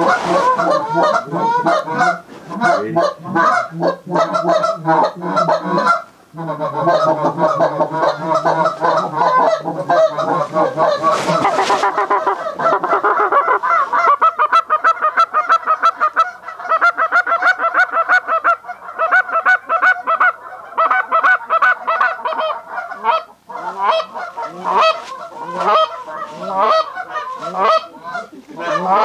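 A flock of Canada geese honking, many short calls overlapping without a break. A low steady hum runs under the calls for roughly the first twelve seconds, then stops.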